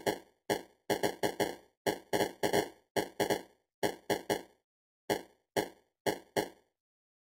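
Popcorn-popping sound effect: the same short pop repeated about twenty times, several a second at first, then thinning out to single pops about half a second apart, with none after about six seconds in. The popping slows as the unpopped kernels run out.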